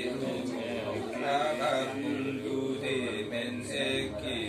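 A voice chanting a Limbu mundhum ritual recitation in long, held sing-song lines with short breaks between them.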